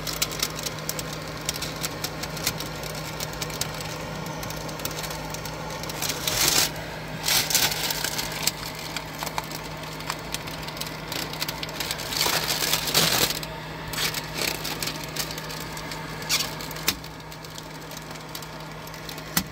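Window tint film being peeled off a tractor cab's glass: the plastic film crackles and crinkles as it comes away, in two louder crackly spells about six and twelve seconds in, over a steady low hum.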